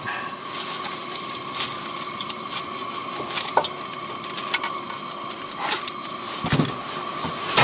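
Gas burner of a Primus Firehole camp stove burning with a steady hiss, with a few light knocks over it.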